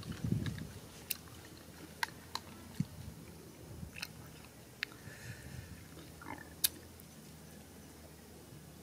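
Close-up eating sounds as cooked snails are eaten: chewing and biting, with a scattering of sharp clicks as a small stick picks the meat out of the shells.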